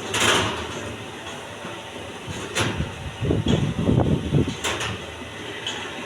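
A few sharp knocks, with a louder rattling clatter lasting about a second and a half in the middle, over a steady background.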